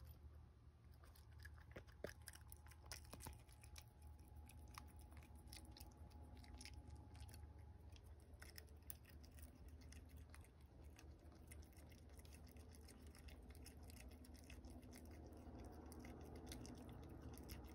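Faint, irregular crunching and clicking of a young raccoon chewing birdseed, over a low steady hum.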